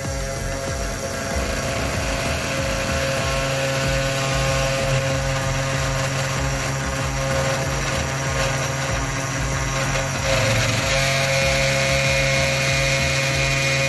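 3018 desktop CNC router milling a wooden block: its small spindle motor whines steadily as the end mill cuts. The tone changes about ten seconds in, as the cut moves on.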